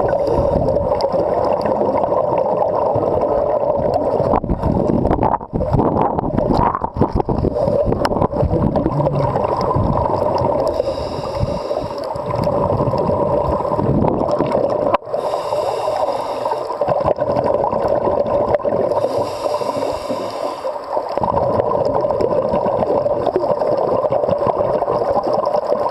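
Steady, muffled underwater noise on a scuba dive, as picked up by a camera inside its underwater housing, with three brief hissing passages a second or two long after the middle.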